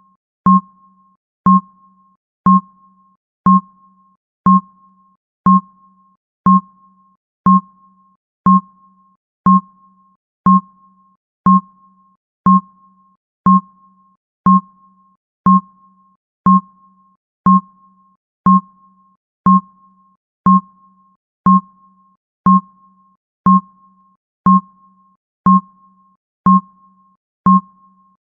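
Countdown timer's ticking sound effect: a short, sharp two-tone tick exactly once a second, steady and even, marking off each second of the countdown.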